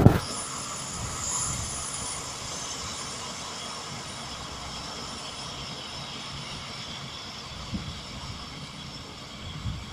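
SK-5 Niva combine harvester running in the field while harvesting: a steady drone of its diesel engine and threshing machinery, with steady high whining tones over it.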